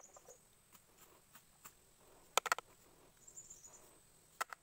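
Two short bursts of rapid, sharp clicking, one past the middle and one near the end, over faint high insect chirping in the background.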